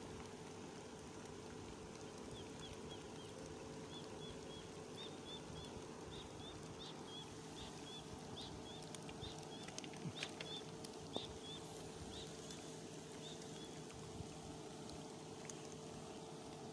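Heavy rain falling steadily on the reservoir water. From about two seconds in until about three-quarters of the way through, an animal gives a run of short high chirps, several a second, and a few sharp taps come near the middle.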